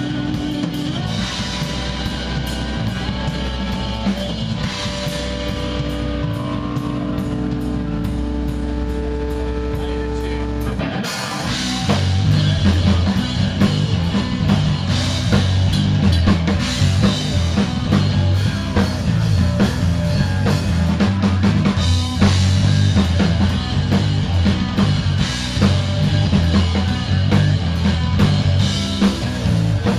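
Live rock band playing: drum kit and electric guitar, with cymbal strokes over held guitar notes. About eleven seconds in, the full band comes in louder, with much more bass and pounding drums.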